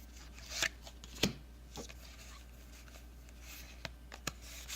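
Quiet handling of a foil Pokémon booster pack and its cards: soft rustling and sliding, with two sharp clicks in the first second and a half and a few lighter ticks near the end.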